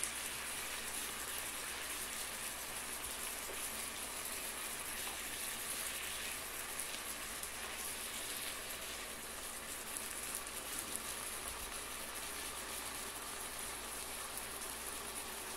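Chicken breasts sizzling in hot oil and pan juices in a frying pan, a steady hiss.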